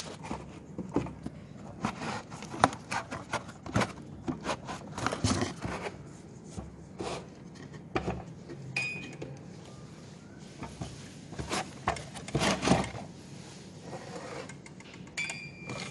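Handling noise as a sewing-machine-shaped music box is lifted out of its cardboard box: irregular clicks, knocks and scrapes of cardboard and the toy's parts against each other.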